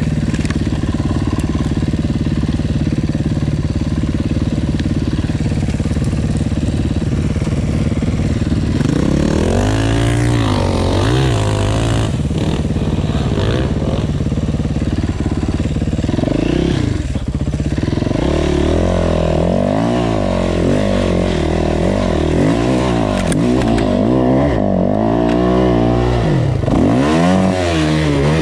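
Yamaha dirt bike engine running steadily, then from about nine seconds in revving up and down again and again while riding over rough ground.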